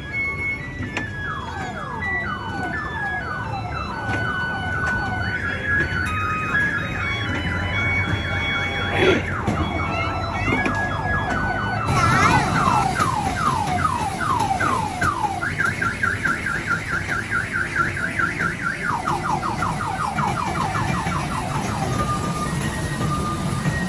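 Electronic alarm-style siren cycling through its tones: runs of falling whoops at about two or three a second, stretches of a fast high warble, and near the end a string of short, evenly spaced beeps. A sharp knock sounds about nine seconds in.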